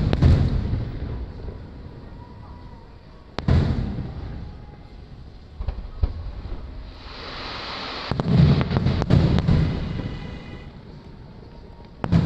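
Aerial firework shells bursting: a boom at the start, another about three and a half seconds in, a cluster of booms around eight to nine and a half seconds, and one more near the end, each dying away slowly.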